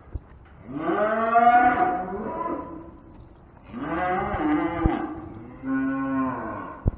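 Cattle mooing: three long bawls, each rising then falling in pitch, the first the loudest. A few short sharp knocks sound between them.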